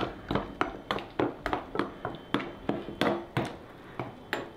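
A kitchen knife knocking against a stainless steel pot as soaking soy chunks are pushed about in the water: a regular run of sharp metal knocks with a short ring, about three a second, pausing briefly near the end.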